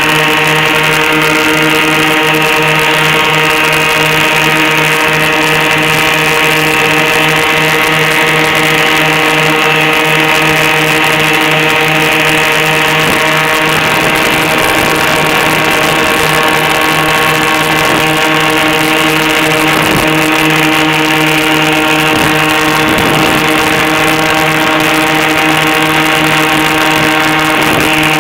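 Airboat's engine and air propeller running at a steady speed: a loud, even drone that holds one pitch throughout.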